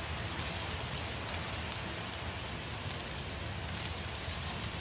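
Burning-forest ambience: a steady, dense rushing noise of fire with scattered small crackles.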